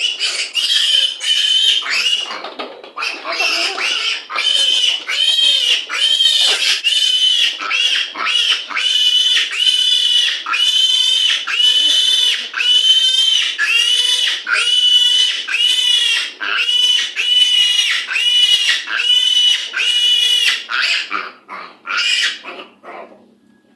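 Week-old piglet squealing over and over, about one loud, high-pitched squeal a second, each rising then falling in pitch, while it is handled for its multivitamin dose. The squeals die away near the end.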